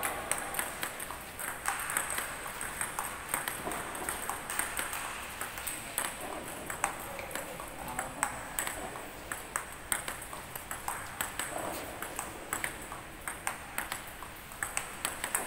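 Table-tennis ball being hit back and forth in a practice rally: a steady run of short, sharp clicks as the ball strikes the paddles and bounces on the table.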